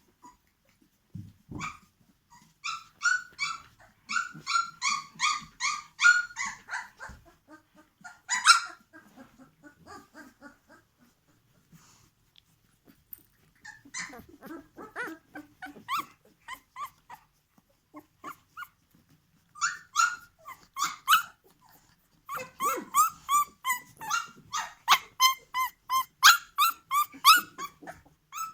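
Puppies about two and a half weeks old squealing and whining in quick runs of short high-pitched cries, several a second, with quieter stretches between the runs; the longest run comes in the last third.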